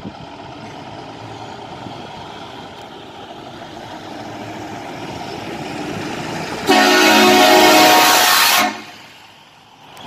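Volvo truck approaching with its diesel engine growing louder, then sounding its horn in one loud blast of about two seconds that starts and cuts off sharply, about seven seconds in.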